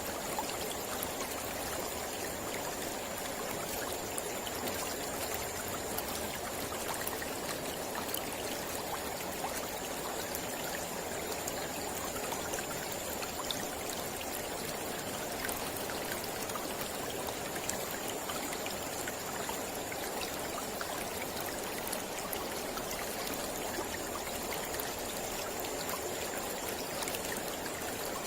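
Mountain river flowing steadily over rocks: an even rushing with scattered small splashes and drips.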